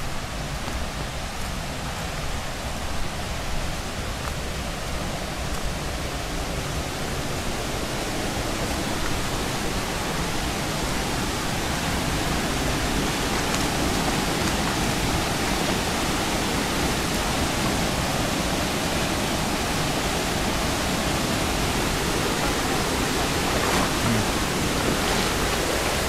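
Water rushing in a small rocky stream with a low waterfall: a steady rushing noise that grows somewhat louder about ten seconds in.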